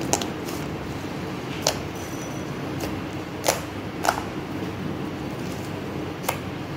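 Stretchy bubble slime, made with air-dry clay and lotion, being squished and folded by hand, with about five sharp pops of trapped air at uneven intervals over a steady background hiss.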